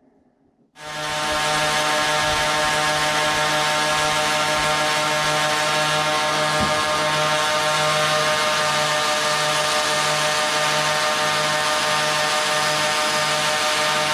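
An electric power tool in a knife-making workshop switches on about a second in and runs steadily, with a strong hiss over its motor hum and a low pulsing beat about twice a second.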